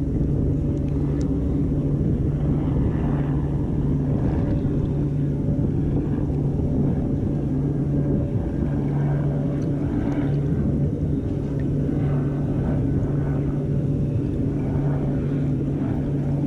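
A steady low engine drone, holding one even pitch throughout, like a motorboat running nearby.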